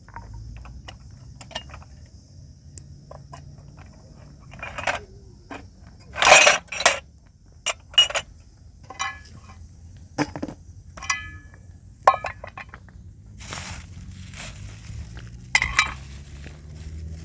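Kitchenware clinking and knocking: an irregular string of sharp knocks and clinks, some ringing briefly with a metallic tone, over a low steady rumble.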